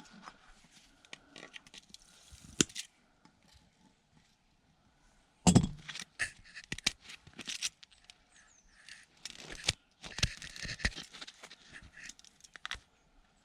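Small electronic parts and tools being handled and worked apart at a bench: scattered clicks, scrapes and knocks. The loudest knock comes about five and a half seconds in.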